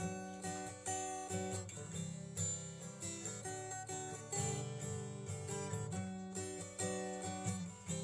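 Background music: acoustic guitar strummed in a steady rhythm.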